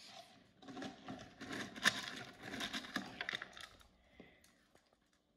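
Crinkly rustling packed with many sharp little clicks, starting about a second in and lasting close to three seconds.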